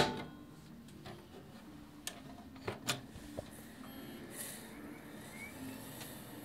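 A few light plastic clicks and taps, about two to three and a half seconds in, from handling the closed case of a Compaq Evo desktop computer, over a faint steady background.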